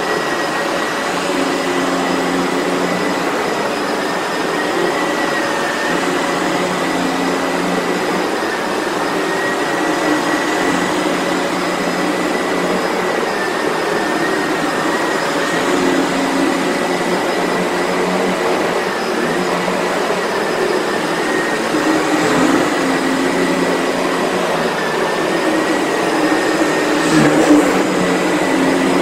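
Sebo Felix vacuum cleaner running steadily while vacuuming carpet: a constant motor whine with a high tone that dips slightly now and then. A short bump sounds near the end.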